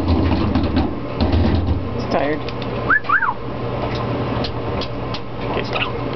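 Black-headed caique hopping about on a hard surface, its feet tapping and scrabbling in quick clicks, with two short chirped whistles about three seconds in. A low hum runs underneath.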